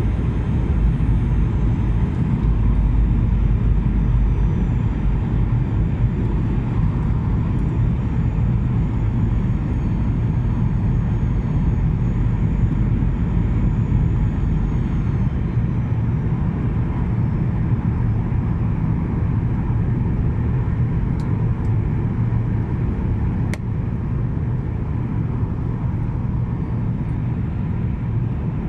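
Steady jet engine and airflow noise heard inside the passenger cabin of a Skymark Boeing 737-800 in flight, with a faint high whine that fades out about halfway through and a single sharp click near the end.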